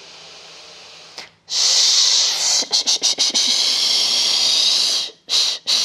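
A woman breathes in softly through the nose, then breathes out hard through the mouth on a long 'shh' hiss of about three and a half seconds, emptying her lungs fully. A brief second hiss follows near the end.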